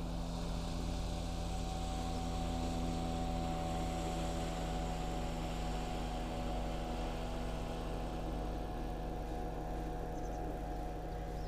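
Outboard boat motor running with a steady, even drone, swelling slightly a few seconds in as a motorboat runs past across the river.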